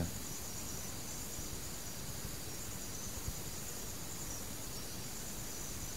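Steady background hiss of the sermon recording, with a constant high-pitched whine and one faint tick about three seconds in.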